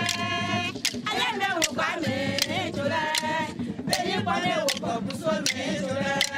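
A group of Abouré women singing a traditional song together, with a sharp beat marked about every 0.8 seconds.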